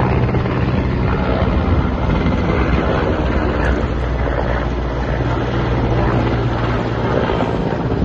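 Firefighting helicopter flying overhead, its rotor and engines running with a steady low beat.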